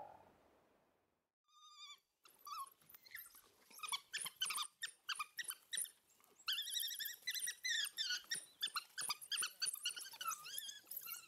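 A pack of African wild dogs twittering and squeaking, many high-pitched chirping calls overlapping while they feed on a carcass. The calls start about a second and a half in and grow denser and louder about halfway through.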